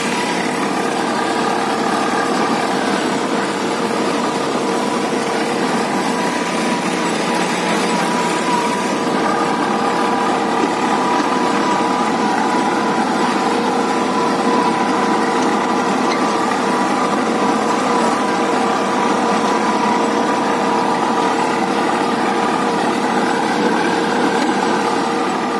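Swaraj 855 tractor's turbocharged three-cylinder diesel engine running steadily under load while pulling a disc harrow, with a constant hum that holds the same pitch throughout.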